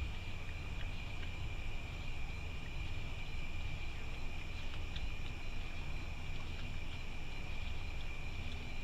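Night insects trilling steadily, one constant high-pitched tone over a low rumble.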